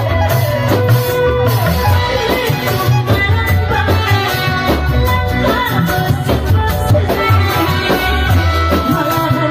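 A woman singing a folk song through a microphone and PA, over the driving beat of Indramayu reog drums.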